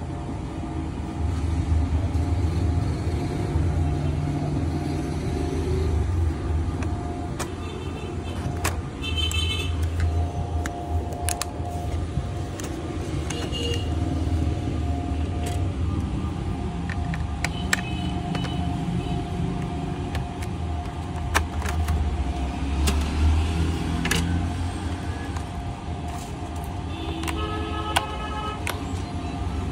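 A steady low background rumble with scattered sharp clicks and taps as a laptop's bottom panel and parts are handled. Brief high tonal chirps come about nine seconds in and again near the end.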